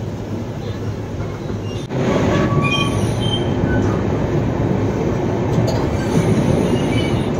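Passenger train coach running on the rails, heard at the open coach door: a steady rumble and hiss of wheels and track, with faint high wheel squeals. It gets louder about two seconds in.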